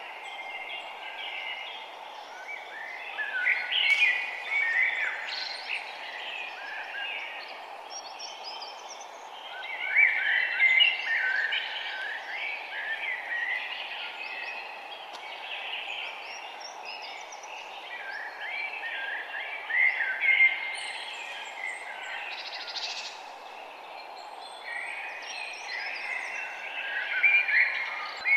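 A chorus of many songbirds chirping and singing at once, swelling into busier flurries every several seconds, over a steady background hiss.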